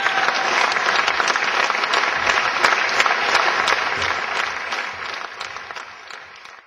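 Audience applauding: dense, steady clapping that fades out over the last two seconds.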